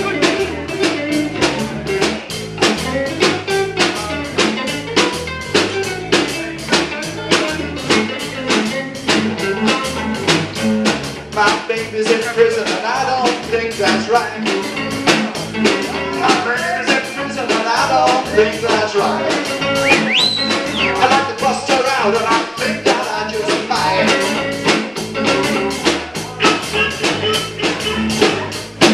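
Live band playing: acoustic and electric guitars over a steady drum-kit beat, with singing.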